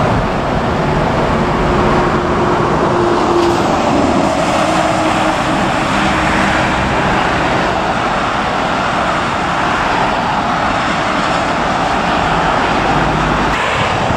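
Jet engine noise from a British Airways Boeing 787 climbing away after take-off on its two Rolls-Royce Trent 1000 engines: a loud, steady roar.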